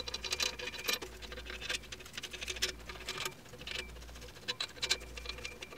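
Light, irregular metal clicks and rattles as the main bearing cap bolts on a 4B12 engine block are loosened and handled.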